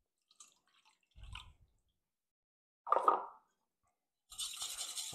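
Milk poured into a stainless steel bowl of raw eggs, heard as one short splash about three seconds in, after a few faint knocks. Near the end a whisk starts scraping around the metal bowl.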